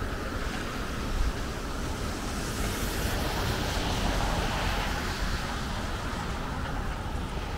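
Outdoor snowy city-street ambience: a steady low wind rumble, with a hiss of light traffic that swells and fades over a few seconds in the middle.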